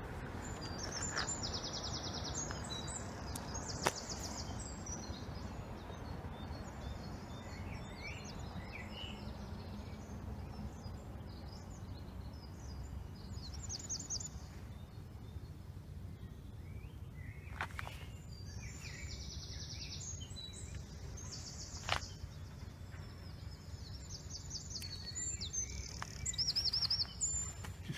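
Several wild songbirds singing: repeated high trills and chirps, some close and some farther off, over a steady low rumble.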